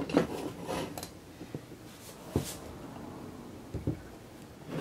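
Scattered metal clicks and knocks as an M14 flash suppressor is fitted onto the rifle barrel's muzzle and tightened with a screwdriver. A handful of separate light taps, one about two and a half seconds in.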